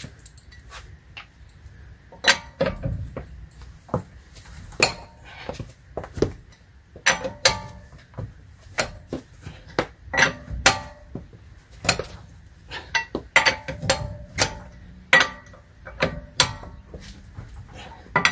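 Steel socket wrench clinking and clanking against the wheel's lug nuts as they are loosened and turned off: sharp metallic clinks at uneven intervals, some ringing briefly.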